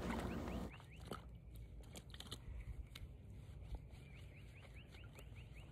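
Faint outdoor background with a bird chirping in two quick runs of short high notes, and a few light clicks and rustles.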